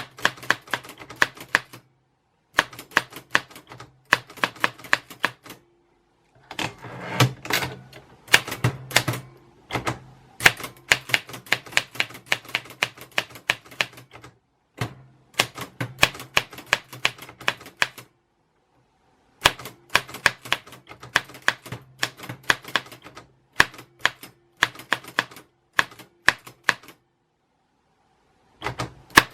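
Typewriter keys clacking in quick runs of strokes, broken by short pauses, with a denser rattling stretch about seven to nine seconds in.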